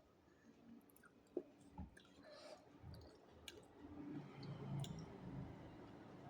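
Faint eating sounds: scattered mouth clicks and soft chewing, a little louder in the second half.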